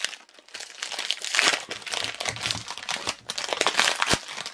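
Gold foil wrapper of a 2015 Panini Black Gold football card pack crinkling in irregular bursts as it is pulled open by hand, with a short knock near the end.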